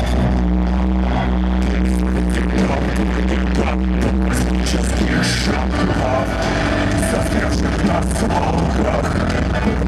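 Live electronic rock music played loud through a club PA, with a heavy, steady bass line.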